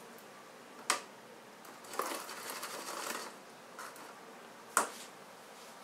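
Metal tweezers handling a copper wire pendant in a plastic tub of liver of sulfur solution: a sharp click about a second in and another near the end, with about a second of scraping and rustling between them.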